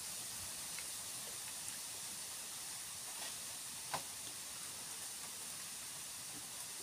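Steady high-pitched hiss of outdoor background, with faint mouth sounds of people eating soft ripe mango slices and one sharp click about four seconds in.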